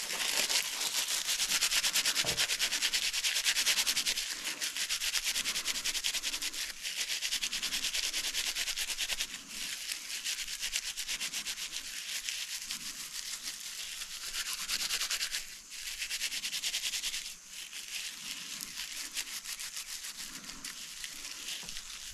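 Dry plant fibre rubbed briskly between the palms to shred it into tinder, a fast, even rasping with a couple of short pauses after the middle.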